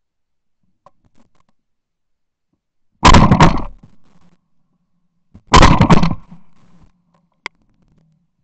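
Two loud shotgun blasts about two and a half seconds apart, each followed by a rattle of quick echoes. The first breaks a clay target. A short sharp click comes near the end.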